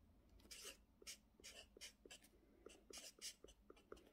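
Felt-tip marker writing on a notebook page: a string of short, faint strokes and scratches as a word is written out, starting about half a second in.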